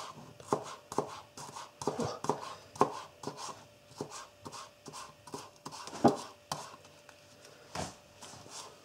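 Spyderco Native 5 folding knife with an S35V blade slicing spring onions on a plastic cutting board: a run of irregular light knocks, about two or three a second, as the blade cuts through and taps the board.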